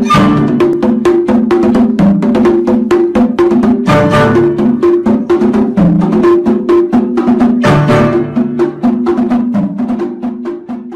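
Background music with a quick, steady clicking percussion beat over low repeating notes, fading down near the end.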